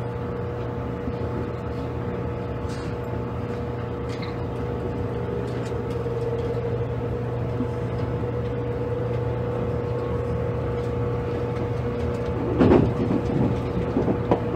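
JR Kyushu 783 series electric train heard from inside its motor car: a steady hum and running noise that slowly grows louder. About 12 seconds in comes a louder burst of wheel clatter over rail joints or points.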